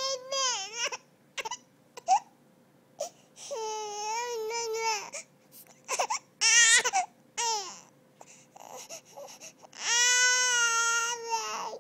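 Four-month-old baby fussing and crying from hunger: a string of short wailing cries with pauses between them, and one longer held cry near the end.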